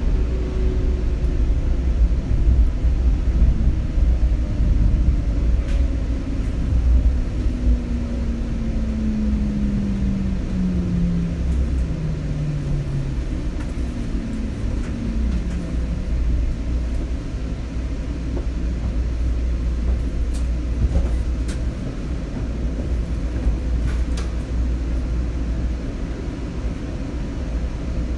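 Seattle Link light rail car running with a heavy low rumble and an electric motor whine that falls steadily in pitch over the first half, as the train slows into a station. A second short falling whine follows, then the rumble carries on steadily.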